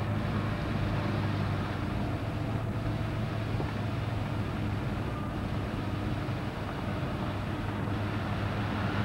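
A vehicle's steady running noise: a constant low hum with a wash of noise over it.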